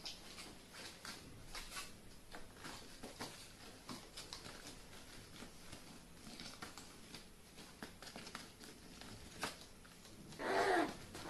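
Carrion crow pecking and shuffling on a plastic tarp: a faint scatter of beak taps, claw scrapes and rustles, with one sharper tap about nine and a half seconds in. Near the end the crow gives a short call that falls in pitch.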